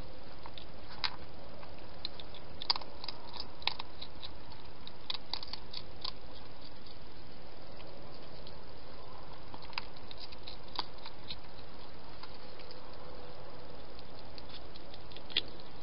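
Hedgehog eating from a dish: irregular clusters of crisp clicking crunches as it chews, over a steady hiss.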